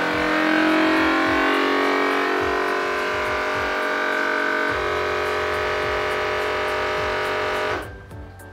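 Fresh World vacuum sealer's pump running steadily as it draws the air out of a bag of gummy candies, its sound shifting a little about halfway through, then cutting off suddenly near the end as the vacuum is reached.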